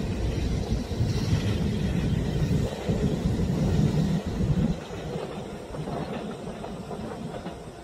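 A train passing close by: a low, heavy rumble that is loud for the first four to five seconds, then drops off and carries on more faintly as it moves away.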